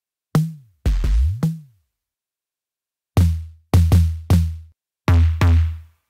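Lo-fi electronic tom hits from Omnisphere's Unclean Machine 'Tom Brown' preset, ten strokes in three short groups. In the first group of four the pitch of each hit bends up and down; the later hits are deeper and steady in pitch.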